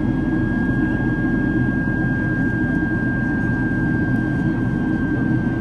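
Boeing 767-300ER jet engines and airflow heard inside the passenger cabin: a steady, even rumble with a constant high whine over it.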